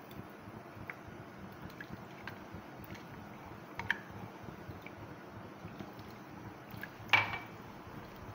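Yogurt-and-onion paste being emptied from a jar into a pot of paya broth: faint wet liquid sounds with a few small clicks. A sharper knock about seven seconds in is the loudest sound.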